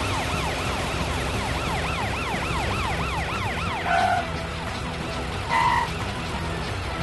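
Cartoon police car siren in a fast yelp, rising and falling several times a second, dying away about four seconds in. Two short, loud tones follow, over a steady low hum.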